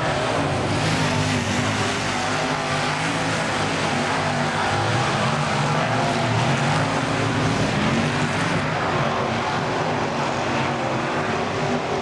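A pack of dirt-track late model race cars with V8 engines racing on the oval. Several engines overlap, their pitch rising and falling as the cars come off and into the turns.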